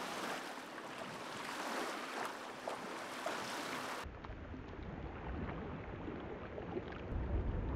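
Wind and small waves washing against the lake shore. About four seconds in, the sound changes to a heavy low rumble of wind buffeting the microphone.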